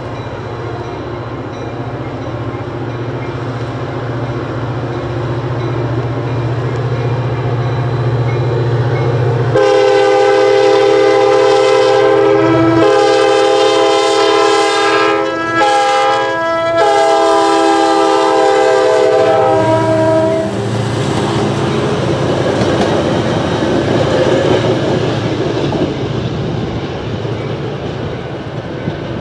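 EMD F40PH diesel locomotive running loud as it approaches, then its Nathan K5LA five-chime horn blowing the grade-crossing signal: long, long, short, long, over about ten seconds. After the horn, the train passes with a steady rumble and clickety-clack of the wheels over the rail joints.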